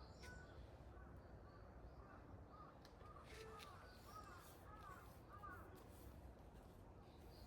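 A crow cawing faintly, a run of about seven short caws in a row that grow a little louder towards the middle, over a low background hum.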